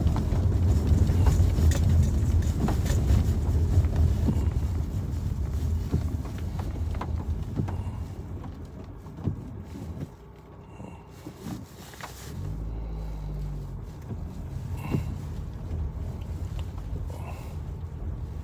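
Car cabin noise on a rough, muddy track: a low rumble of tyres and engine that eases off and fades from about eight seconds in as the car slows, then a steady low engine hum from about twelve seconds, with a few scattered knocks.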